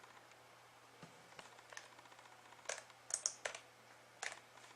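Faint, scattered light clicks and taps at a computer, about eight in all, coming irregularly from about a second in.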